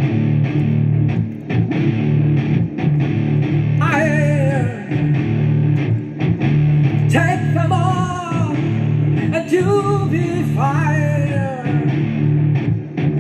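Playback of a home-recorded doom metal track: sustained distorted electric guitar chords over keyboards and percussion, with a sung vocal line coming in about four seconds in and returning in short phrases.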